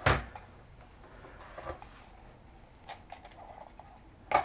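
Quiet handling of a plastic computer mouse and its cord over a glass kitchen scale. A sharp knock comes right at the start and another near the end, as the mouse goes down onto the scale to be weighed.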